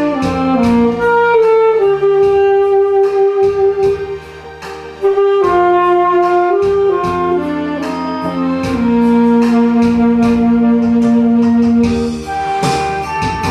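Instrumental music: a saxophone plays a slow melody of long held notes over a backing track with a steady beat, ending on a long sustained low note.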